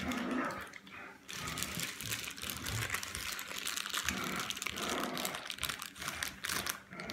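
Close rustling and crinkling handling noise, a dense run of small scratches and clicks that starts about a second in and goes on with short pauses.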